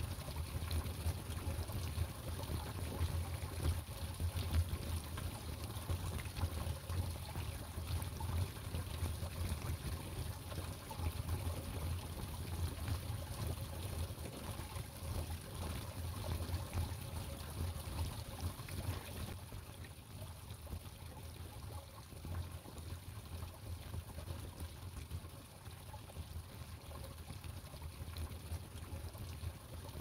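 Small forest stream trickling steadily, with a low rumble under it; a little quieter in the last third.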